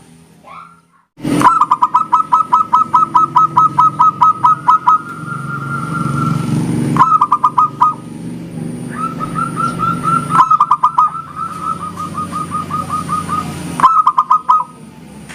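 Zebra doves (perkutut) singing: fast trains of short stuttering notes, about five a second, broken by held cooing notes, with several birds answering one another. A low rumble of background noise runs underneath, and the song starts and stops abruptly in several places.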